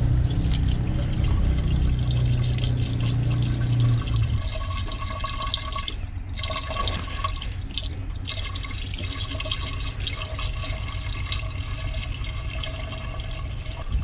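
Water poured from bottles into a truck's empty engine cooling system, which is being refilled after a coolant leak. A low hum runs under it and stops about four seconds in.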